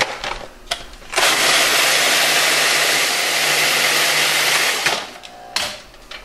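Cuisinart food processor running in one steady burst of almost four seconds, its blade grinding pieces of matzo into fine crumbs, with a few light clicks before it starts.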